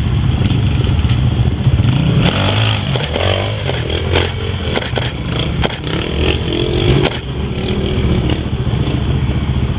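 A trials motorcycle engine running and revving up and down as it climbs a rocky section, with a run of sharp knocks and scrapes in the middle as the bike strikes the rocks.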